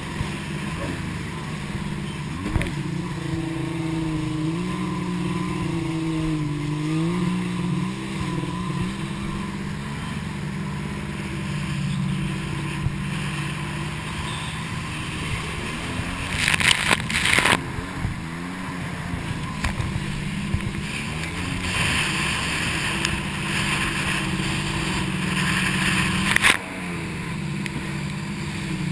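Jet ski engine running at speed, its pitch rising and falling with the throttle, over the hiss of spray and wind. Brief loud crashes of water hit a little over halfway through.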